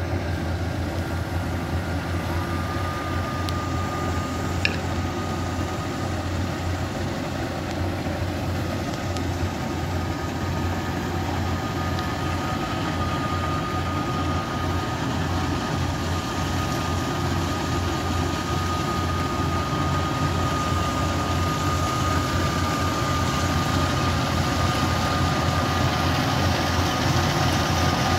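A rice combine harvester's engine and cutting machinery run steadily as it works toward the camera through a boggy paddy, with a low hum and a thin steady whine. The sound grows slowly louder as the combine closes in, mixed with the engine of a tracked grain carrier nearby.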